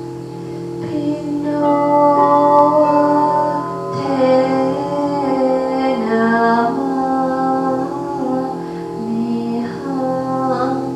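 Crystal singing bowls sounding a steady, held drone of several tones. From about a second in, a voice sings a slow melody over them, moving in steps.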